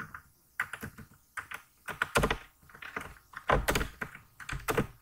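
Typing on a computer keyboard: an irregular run of keystrokes with a few louder key clacks in the second half.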